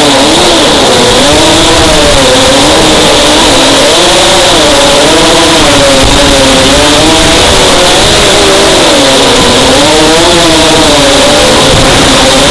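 FPV racing quadcopter's electric motors and propellers, loud and buzzing, the pitch rising and falling constantly as the throttle is worked through the turns of the circuit.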